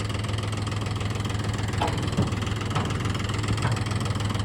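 Heavy diesel engine idling steadily with an even low hum.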